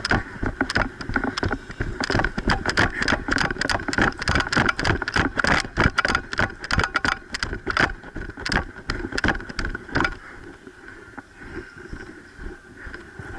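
Footsteps of a person running, about three strides a second, with a steady rushing noise underneath; the steps stop about ten seconds in.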